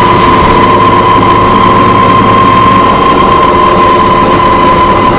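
A loud, steady, high-pitched screech inside a New Flyer D40LF diesel transit bus, held at one pitch over the bus's low engine rumble. The uploader puts the horrible screeching down to either the brakes or the Voith transmission.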